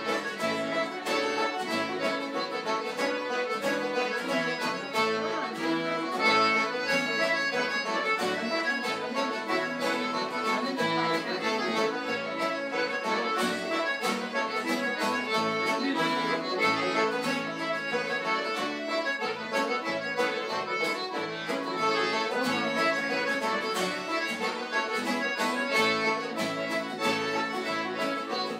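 Live session music: several instruments playing a tune together to a steady beat, without a break.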